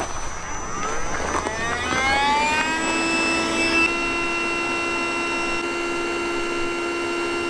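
Electric air pump starting up, its whine rising in pitch over about two and a half seconds, then running at a steady pitch while it blows air into an inflatable raft.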